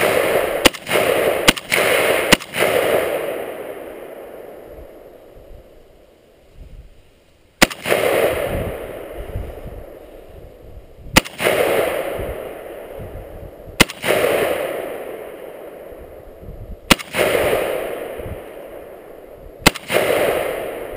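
Romanian AK-47 rifle firing 7.62×39 mm rounds close up: a quick string of four shots under a second apart at the start, then five single shots roughly three seconds apart. Each shot trails a long, fading echo.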